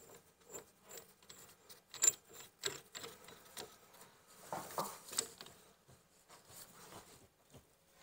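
Faint, irregular metal clicks and rattles from a brake caliper wind-back tool being handled and fitted to a rear brake caliper, with one sharper click about two seconds in.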